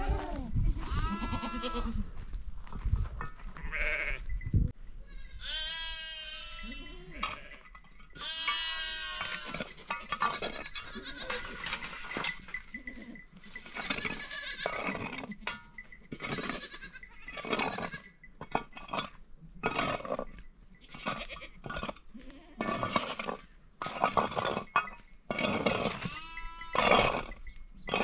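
Goats and sheep bleating over and over, many calls following and overlapping one another, some of them long and quavering.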